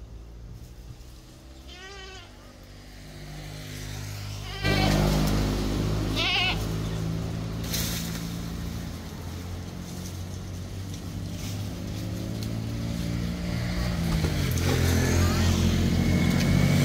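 A few short wavering animal calls in the first half. A motor vehicle engine runs throughout the second part, getting steadily louder toward the end.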